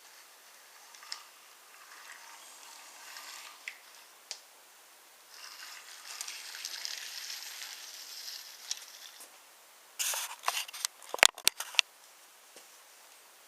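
Wooden toy trains on a wooden railway track: a few scattered clicks, several seconds of light rolling rattle, then a quick run of sharp wooden clacks about ten seconds in.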